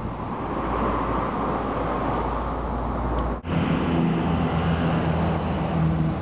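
Vehicle on the move: steady engine and road noise. The sound breaks off for an instant about three and a half seconds in, then comes back with a steadier, clearer engine hum.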